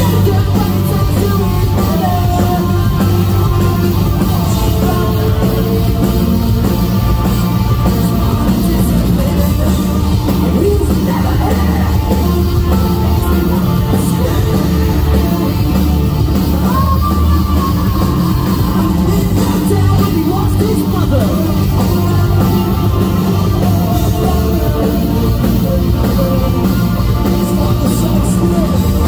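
A live rock band playing loud and without a break: electric guitars, bass guitar and drum kit, with the singer's vocals over them through the venue's sound system, heard from the crowd.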